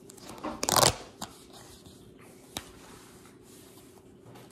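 A cardboard advent calendar door is torn open: one short, loud rip of card just under a second in. A couple of light clicks follow as the card is handled.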